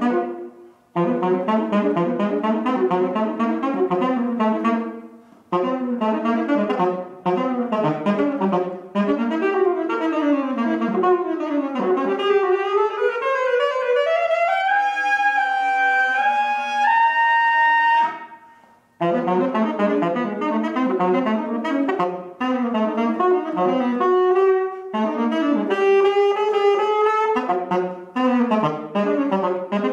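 Solo alto saxophone playing fast runs of short, detached notes broken by brief pauses. About halfway through it slides slowly upward into a long high note that steps up once more and breaks off. After a short gap the rapid notes start again.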